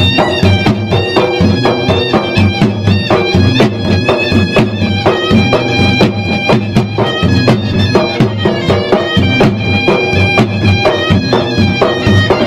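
Traditional Maros gendang drums (Makassar-Bugis ceremonial drums) beaten in a fast, dense rhythm, with a reed pipe playing a sustained melody over them, in the manner of the pui-pui shawm that accompanies gendang ensembles.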